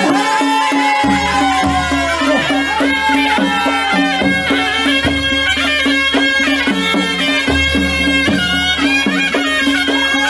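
Traditional folk music: a melody over a steady held drone, with low bass notes coming in about a second in.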